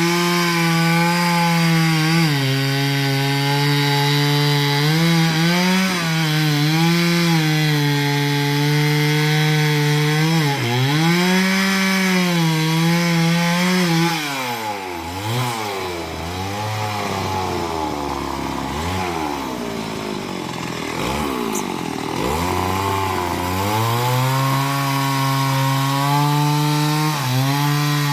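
Chainsaw running steadily as it cuts into a young coconut palm trunk. From about halfway through, its pitch swings up and down for several seconds and the level drops a little, then it settles back to a steady run.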